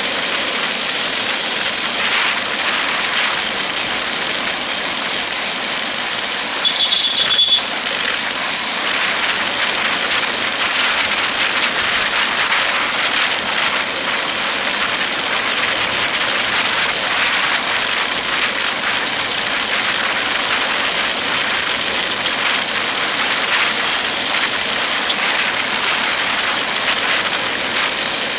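Steady rushing road noise of a bicycle at speed in traffic: wind and tyre hiss, with vehicles running close by. A brief high-pitched squeal about seven seconds in.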